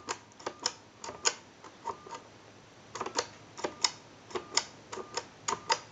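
Touch-tone keypad of a Snoopy and Woodstock novelty telephone being dialed: about eight key presses, each a click down and a click up with a brief touch-tone beep between them.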